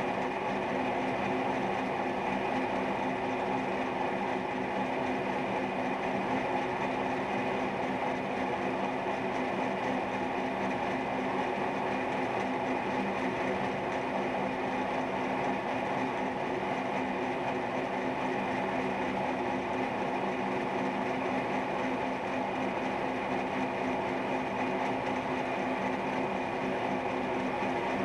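Milling machine running steadily, its cutter milling a hemispherical socket into steel while the rotary table turns the work; a constant machine hum with several steady tones over cutting noise.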